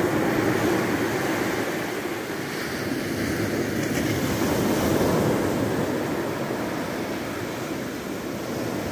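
Small sea waves breaking and washing up over a sandy shore: a steady rushing surf that swells a little about halfway through and eases off near the end.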